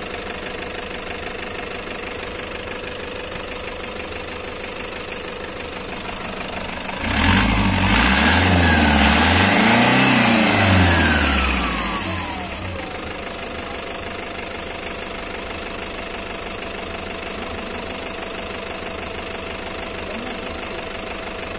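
Toyota HiAce engine idling steadily, revved up a couple of times about a third of the way in and then dropping back to idle. The engine runs after a replaced temperature sensor cured its hard starting.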